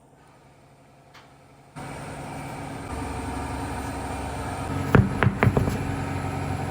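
A vehicle running with a steady drone that starts about two seconds in and gets a step louder a second later, with a few sharp knocks near the end.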